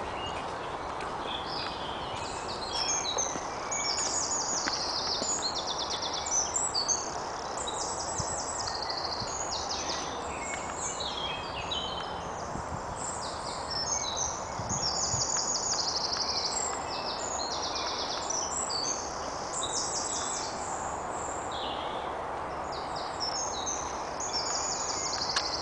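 Woodland birdsong: several songbirds singing at once, with quick, high, rapidly repeated trills and chirps throughout, over a steady background hiss.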